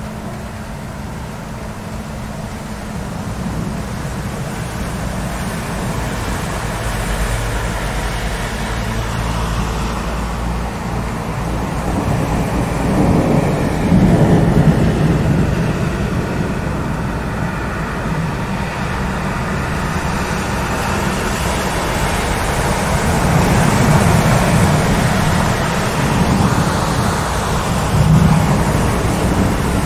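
Steady rain with low rolling thunder, the rumble swelling about halfway through and again in the last few seconds.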